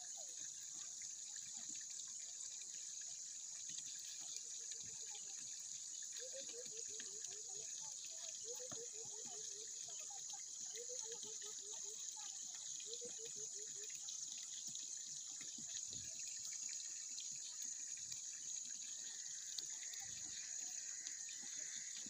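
Water trickling and splashing steadily into a fish pond from an inlet pipe. Between about 6 and 14 seconds in, an animal gives several runs of short, low, falling calls.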